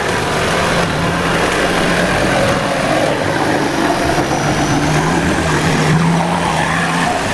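Off-road 4x4's engine running steadily under load as it crawls through deep mud and water, with a constant wash of splashing and churning mud; the engine tone strengthens a little past the middle.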